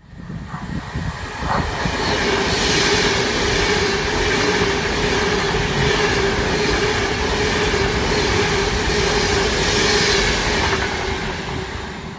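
A full-size electric passenger train running through a station at speed: a heavy rumble of wheels on rail with a steady whine, building over the first couple of seconds and dying away near the end as it clears the platform.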